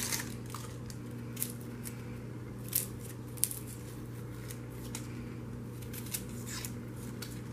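Kitchen knife peeling and trimming a white onion held in the hand: short, scattered scraping and crackling strokes as the blade cuts through the dry papery skin, over a steady low background hum.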